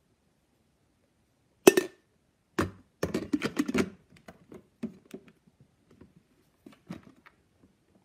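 Plastic parts of a coffee maker being handled and its hinged top swung open: a sharp knock about two seconds in, a quick run of clatters and clicks a second later, then a few lighter taps.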